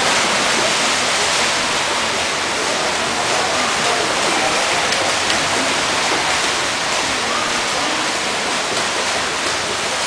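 Steady splashing of swimmers racing front crawl in a pool, with faint voices in the background.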